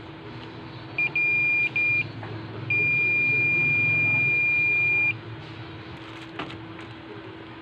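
Digital multimeter's continuity beeper sounding as the test probes touch points on a TV power-supply board: three short beeps about a second in, then one long steady beep of about two and a half seconds.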